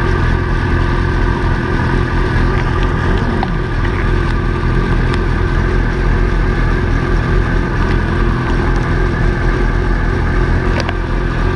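Honda CB600F Hornet's inline-four engine idling steadily while the motorcycle waits at a red light, with no revving.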